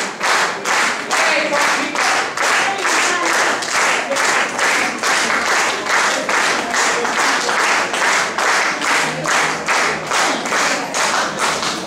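Audience clapping in unison, a steady rhythmic applause of about three claps a second, which stops suddenly at the end.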